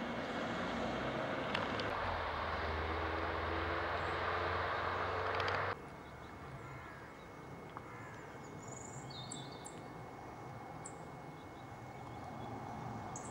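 Road traffic passing on the bridge: tyre and engine noise that stops suddenly about six seconds in. A quieter outdoor background follows, with a few short bird chirps.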